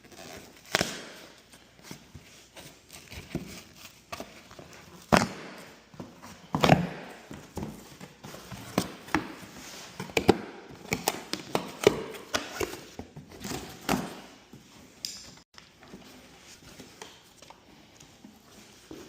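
Irregular knocks, clicks and clatter of hands and tools working on garage door opener parts, with two heavier knocks about five and six and a half seconds in and a quicker run of small clicks in the middle.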